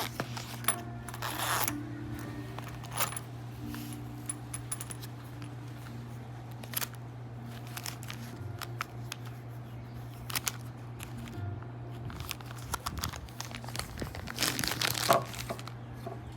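Folding flipper pocket knife being handled and flipped open and shut: scattered sharp clicks of the blade snapping into place, with short bursts of rustling about a second in and near the end, over a steady low hum.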